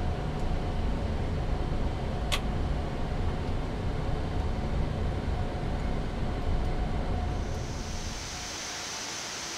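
Low rumble on a Boeing 787 flight deck as the aircraft taxis, with a faint steady tone and a single sharp click about two seconds in. Near the end the rumble drops away, leaving a steady high hiss.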